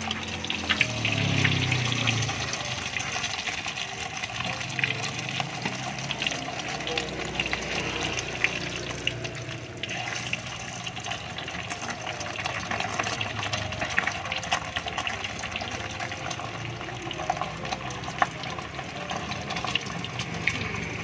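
Steady hiss of hot cooking oil bubbling in a wok, with scattered sharp clicks throughout and a louder low rumble about a second in.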